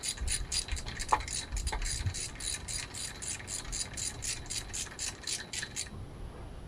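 Ratchet wrench clicking in a steady rhythm, about four clicks a second, as the nut on a brace-band bolt is run down; the clicking stops about six seconds in.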